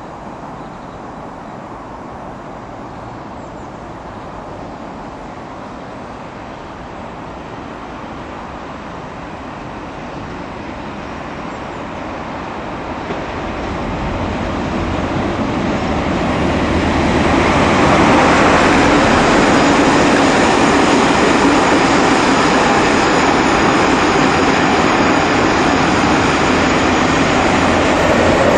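Class 47 diesel locomotive, its Sulzer twelve-cylinder engine working, hauling a train of coaches toward and past the listener. The sound grows steadily louder over the first two-thirds as the train approaches, then holds loud and steady as the locomotive and coaches roll by close up.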